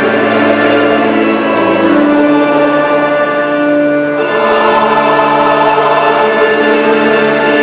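Church choir singing a slow sacred piece with instrumental accompaniment, in long held notes, the chord changing about two seconds in and again about four seconds in.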